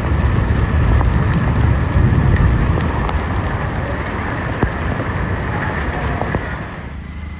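Heavy wind rumble on the microphone with road noise from a motorbike ride through heavy rain, and a hiss of rain over it. It eases off near the end.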